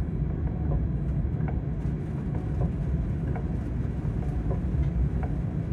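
Steady low rumble inside the cab of a Class 186 electric locomotive, with faint light ticks about once a second.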